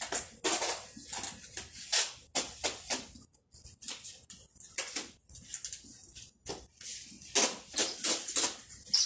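Irregular rustling, crackling and scraping, a quick uneven run of short noisy bursts, from people packing a large cardboard cargo box.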